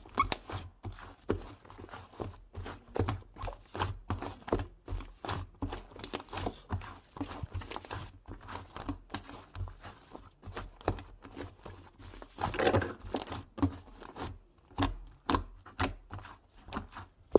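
Slime being squeezed and pressed by hand, making a run of short sticky clicks and pops a few times a second, with a longer crackling squish about two-thirds of the way through.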